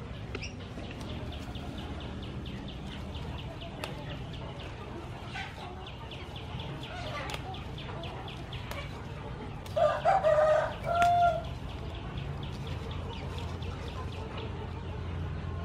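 A rooster crows once, about ten seconds in: a loud pitched call in two parts, the second short. A fast, even, high ticking runs through the first few seconds.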